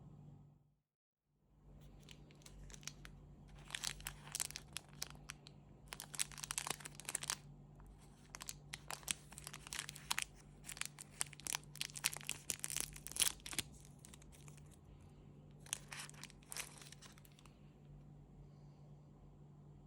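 Chocolate wrapper being torn open and unwrapped, crackling and crinkling in several bursts of handling.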